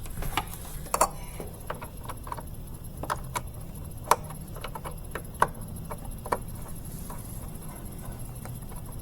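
About a dozen irregular light clicks and taps, the sharpest about four seconds in, as small parts are handled and fitted on the washing machine's control panel, over a low steady hum.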